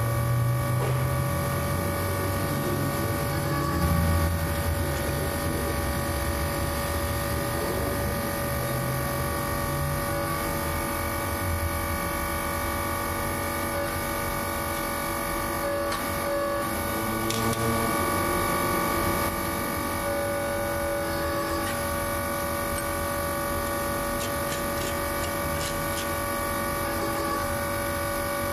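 Electric motor of a hydraulic press's pump unit humming steadily. A lower rumble rises and falls through the first part and again briefly about two-thirds of the way through.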